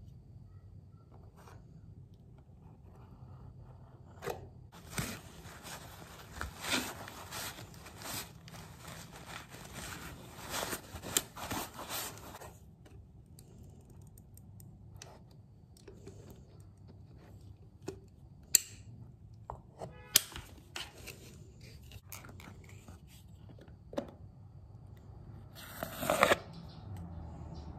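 Plastic scraper smoothing fresh caulk into a wall corner: a run of quick rasping scrape strokes for several seconds, then a few sharp clicks and one louder short scrape near the end.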